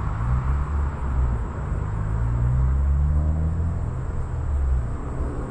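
Low engine rumble of a passing motor vehicle, with a slowly shifting pitch, swelling to its loudest about halfway through and then easing off.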